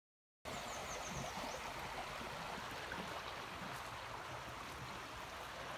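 Steady rushing of running water from a stream, starting abruptly about half a second in. A bird gives a quick run of about six short, high, falling chirps about a second in.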